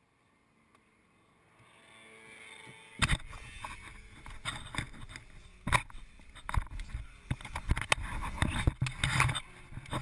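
Near silence, then a rising rough rumble, and from about three seconds in a string of irregular sharp knocks and rattles as the kart-mounted camera and chassis are jolted.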